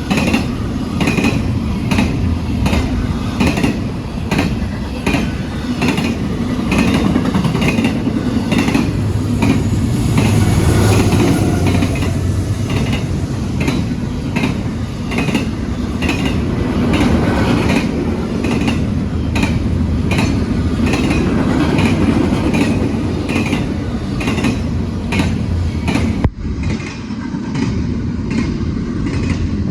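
Norfolk Southern freight train rolling past at speed, its wheels clicking over rail joints about one and a half times a second over a steady heavy rumble.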